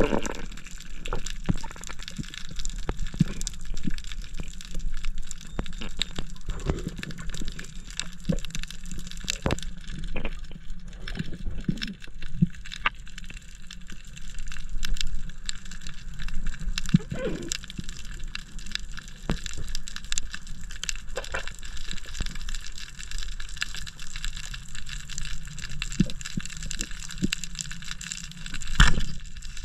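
Underwater ambience picked up by a camera in its housing: a steady wash of water noise with irregular crackling clicks, and a sharper knock near the end.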